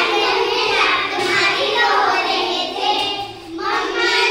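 A group of young girls singing a rhyme together, with a short break between lines about three and a half seconds in.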